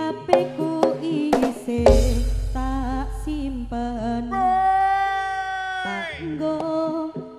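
Live jaranan ensemble music: drums and a wavering melody, with a cluster of drum strikes and a heavy low drum boom about two seconds in. Later the melody holds one long high note that slides down and breaks off about six seconds in, before the drums and melody pick up again.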